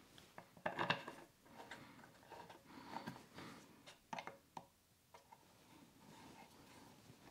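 Quiet handling of a wooden chair frame: a cluster of light knocks and clicks about a second in, then faint rubbing and a few sharp clicks as a hand screwdriver turns a wood screw into the frame.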